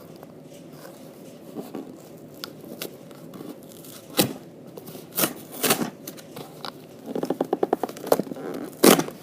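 Cardboard box being forced and torn open by hand, held shut by tape: scattered sharp rips and crackles, a quick run of tearing a little after seven seconds in, and one loud rip near the end.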